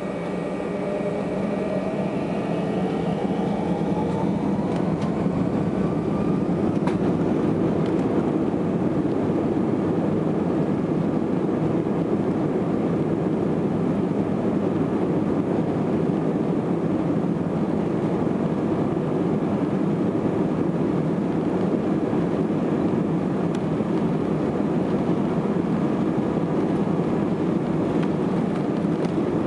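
Airbus A319 jet engines spooling up to takeoff thrust, heard from inside the cabin over the wing. A rising whine climbs over the first several seconds, then settles into a steady loud roar and rumble as the airliner accelerates down the runway on its takeoff roll.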